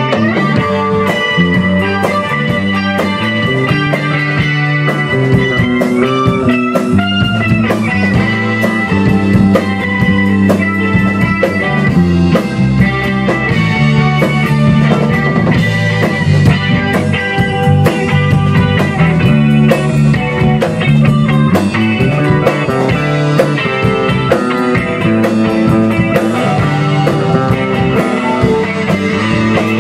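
Rock band playing an instrumental break on electric guitar, bass guitar and drum kit. The lead guitar holds a long high note and bends it upward about a third of the way through.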